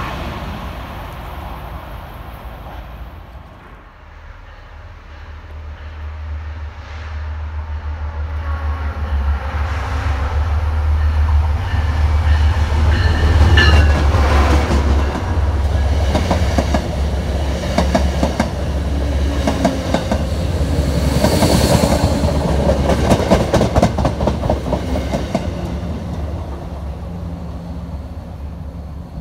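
A diesel-hauled MBTA commuter train passing close by: a steady low engine drone builds up, then fades, and the wheels clack rapidly over the rail joints as the coaches roll past at its loudest. In the first few seconds the noise of a train that has just gone by dies away.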